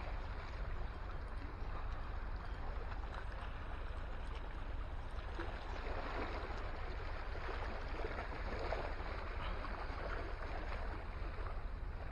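Small waves lapping and washing against the rocks at the water's edge, with a steady low wind rumble on the microphone.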